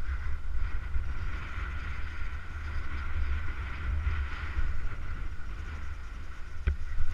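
Wind rumbling on a GoPro's microphone while skiing downhill, with skis hissing over the snow. A single sharp knock near the end.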